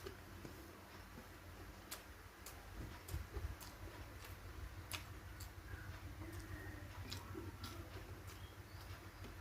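Faint sounds of a person eating a rice meal: quiet chewing with a dozen or so small sharp clicks scattered irregularly throughout.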